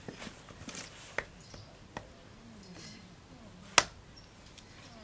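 A small hatchet with a piece of firewood wedged on its blade is knocked down onto a wooden chopping block to split it. There are a few light knocks, then one sharp chop near the end.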